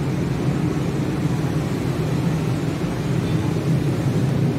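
Steady low mechanical rumble with a hum, holding level throughout.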